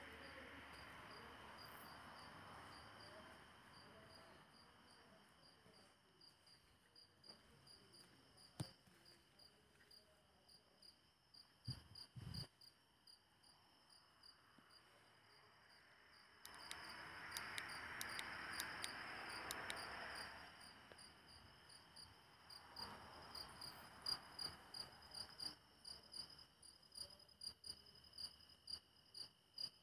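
Crickets chirping steadily in the dark, a faint high pulsing. A stretch of louder rustling noise comes in the middle, along with a couple of low thumps.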